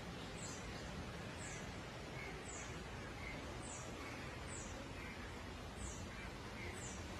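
A short, high chirp that falls slightly in pitch, repeated roughly once a second over a steady background hiss.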